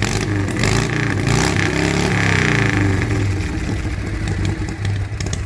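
1977 Harley-Davidson Shovelhead V-twin engine revved once, rising from about half a second in and dropping back to a steady idle after about three seconds.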